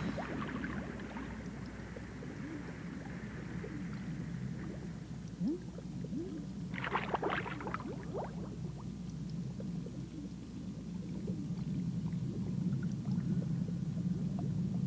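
Cartoon underwater sound effect: a steady low rumble with bubbles gurgling. There is a brighter burst of bubbling about seven seconds in.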